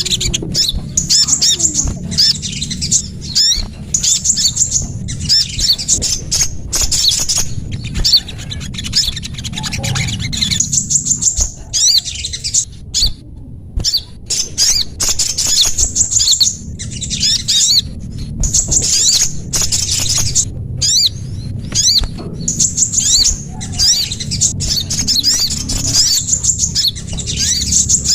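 Small songbirds chirping rapidly and shrilly in dense bursts with brief pauses, played as a bird-lure call (suara pikat) to attract birds such as sunbirds and prinias. A steady low hum runs underneath.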